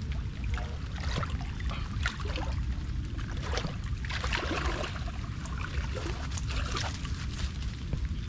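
Shallow water splashing and sloshing in irregular bursts, busiest about halfway through, over a steady low rumble.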